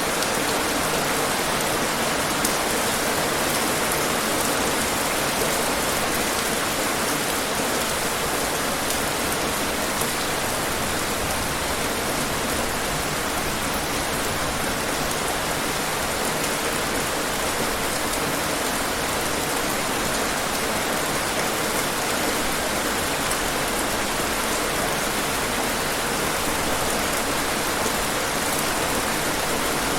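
Steady rain falling: an even, unbroken hiss of rain on hard surfaces, with scattered faint drop ticks.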